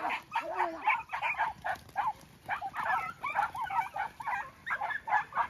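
A pack of hunting dogs yelping and barking in quick, overlapping high-pitched calls.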